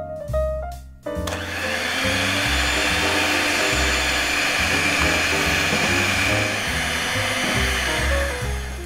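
Electric hand mixer running steadily, its twin steel beaters whipping cream in a stainless steel bowl; it starts about a second in and stops near the end.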